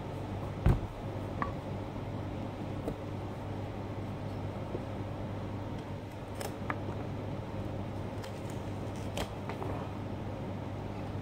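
Hand carving tool scraping and shaving the skin of a pumpkin, with small scattered clicks and one sharper knock about a second in, over a steady low hum.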